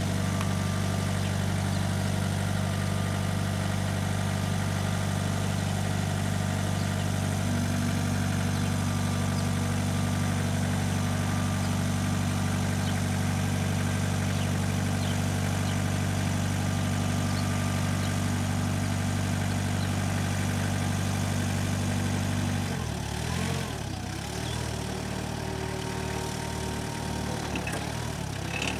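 Hyster H2.50XL diesel forklift engine running steadily while the triplex mast is hydraulically raised. About 23 seconds in, the engine note changes and settles lower and quieter.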